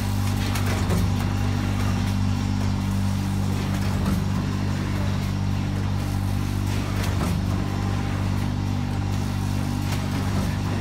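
720FD vertical flour packing machine running: a steady low mechanical hum of several even tones, with faint knocks every few seconds.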